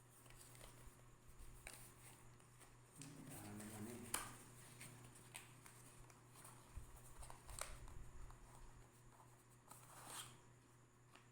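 Quiet handling noises from a selfie ring light's plastic parts and phone clip: a few light clicks and taps, the sharpest about four seconds in, with a brief low murmur just before it.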